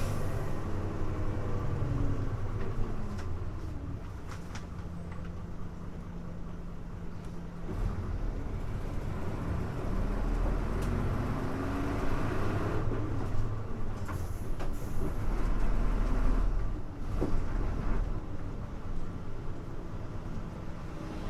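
Hino Blue Ribbon U-HU2MLAA city bus engine heard from inside the cabin: the engine note falls in the first few seconds as the bus slows for a stop, then it runs low, with a deep rumble and a few clicks in the second half.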